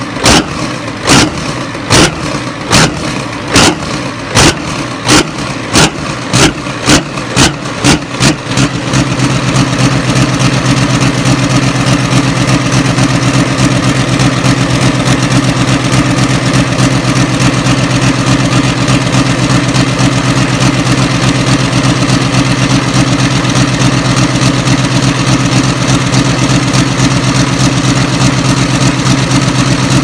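V8 engine starting: for about eight seconds, loud separate pops that come faster and faster, then it catches and runs steadily at an even, low pitch.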